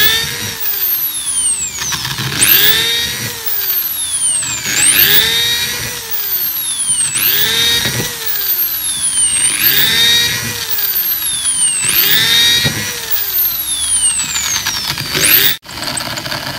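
Green Hitachi electric drill boring a row of holes through a bamboo stalk, one after another. For each hole the motor whine jumps up in pitch, then sags steadily as the bit bites through the bamboo, about every two seconds. The sound drops out for an instant near the end.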